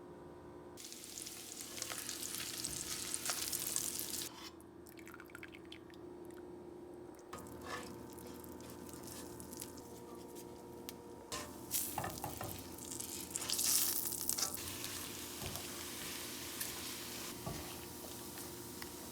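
Food sizzling in a frying pan as it is stirred, with scattered clicks and scrapes of the utensil. The sizzle swells and dies back in several stretches over a steady faint hum.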